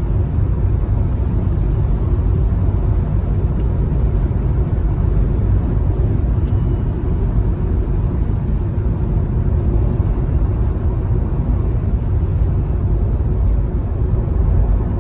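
Steady rumble of a car driving at road speed, engine and tyre noise with no change in pace.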